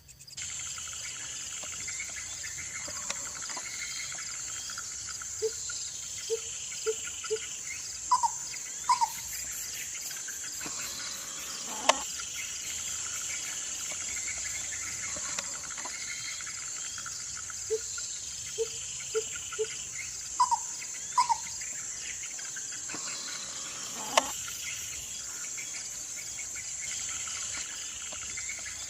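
Steady high-pitched insect chorus. Twice over it comes the same sequence: a run of four short low hoots, two quick higher calls, then a single sharp call.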